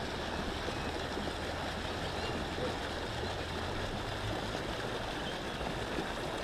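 Steady rush of flowing water from a small stream at a spillway.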